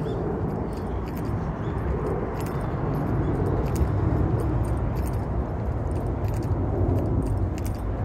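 A person walking with a handheld phone: irregular light clicks and jingles over a steady low rumble.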